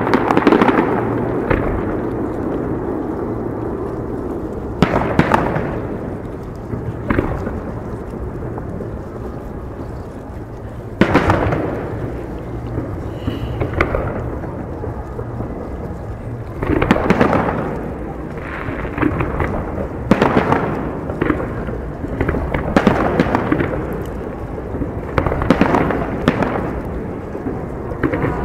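Fireworks shells bursting overhead: sharp bangs that fade out in a rumble. A few come several seconds apart, then a quicker run of them follows in the last ten seconds or so.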